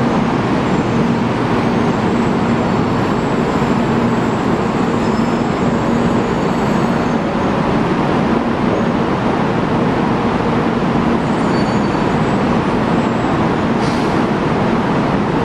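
Taiwan High Speed Rail 700T electric multiple unit pulling slowly into a station platform: a steady running noise of wheels and running gear with a faint low hum, and one brief click near the end.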